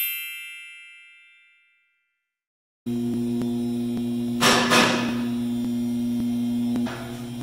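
A bright ringing note that fades away over about two seconds, then a short silence. A steady electrical mains hum follows in the workshop, with a couple of metal clanks about four and a half seconds in and a softer one near the end.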